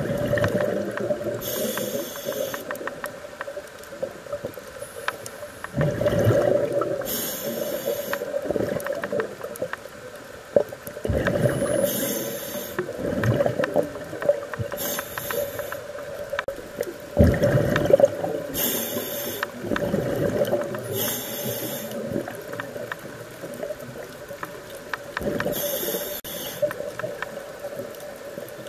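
Scuba regulator breathing heard underwater: short hissing inhalations and bubbling, gurgling exhalations, repeating every few seconds. A steady hum runs underneath.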